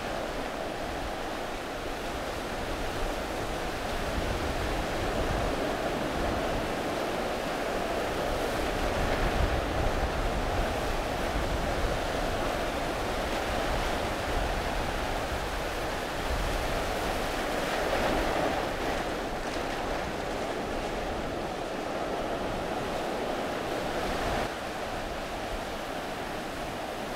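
Ocean surf surging over a shallow reef, swelling louder a few times, with wind rumbling on the microphone.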